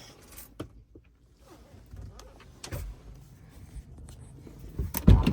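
Scattered clicks and knocks of hands working at a car's fuse box and wiring, with one loud thump near the end.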